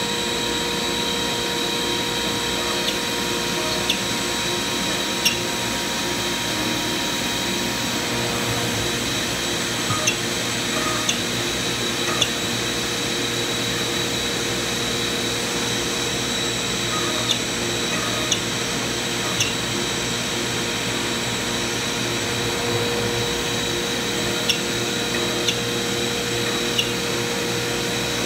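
CNC router shop machinery running steadily: the dust collector's air rush and a steady high whine from the router's spindle. Scattered light clicks sound over it.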